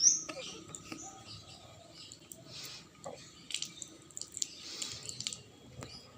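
Hand washing: hands rubbing together with soft, wet, squishy rustles and a few light clicks and taps, opening with a short sharp squeak.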